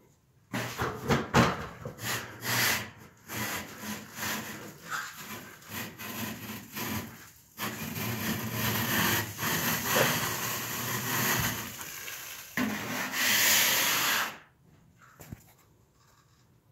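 Wide metal scraper blade scraping popcorn texture off a ceiling in a series of uneven scraping strokes. The strokes stop about two seconds before the end.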